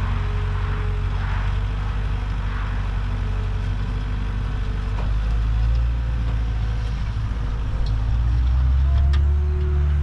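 John Deere 320D skid steer's diesel engine running steadily, its level rising about halfway through and again near the end as it works the asphalt piles.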